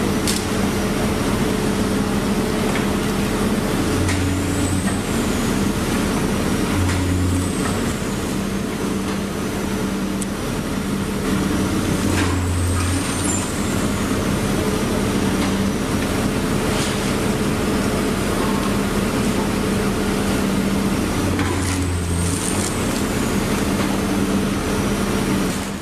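Steady traffic noise of vehicles crossing a bridge, with a steady engine hum underneath and a deeper swell every few seconds. Several high-pitched squeals rise and fall over it.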